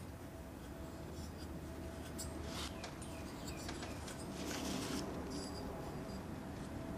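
Faint scratchy rubbing as a fingertip works over a thread-repair insert seated in a lawn mower engine's cylinder head, with a few louder scrapes about two and a half and four and a half seconds in.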